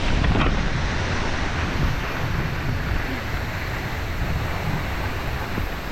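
Steady rush of a waterfall's falling water, with wind buffeting the microphone.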